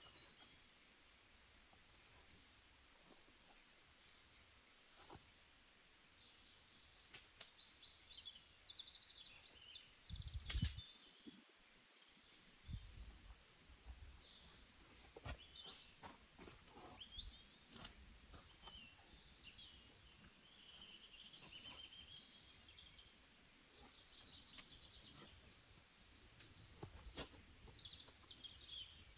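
Small birds chirping and twittering on and off, faint, with scattered light clicks and one louder knock about ten seconds in.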